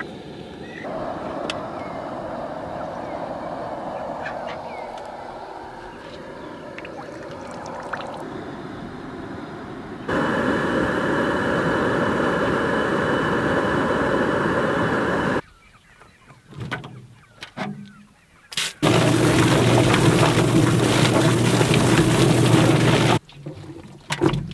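Backyard chicken processing: a meat chicken squawks as it is carried, then a steady rushing roar is heard while the bird is dunked in a scald pot over a propane burner. Near the end, a drum chicken plucker's electric motor runs loudly for a few seconds, with a low steady hum under the rubber fingers beating the bird, then cuts off abruptly.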